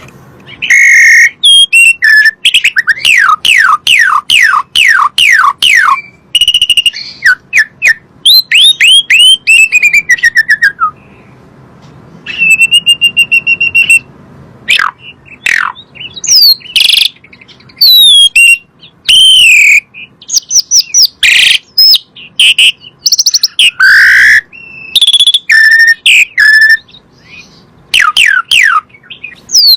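Asian pied starling (jalak suren) singing loudly in a varied run of whistles. There are quick series of downward-sliding whistled notes, a held whistle with a trill about halfway through, and short chirps and squawky notes between brief pauses.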